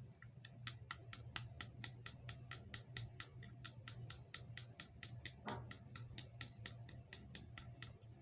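A rapid, even series of light clicks, about five a second, with a steady low hum underneath.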